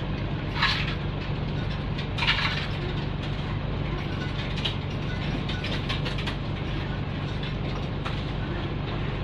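Nissan Diesel PE6H bus diesel engine running steadily at an even pitch, heard inside the bus cabin, with two short hisses about a second and two seconds in and light clicking and rattling throughout.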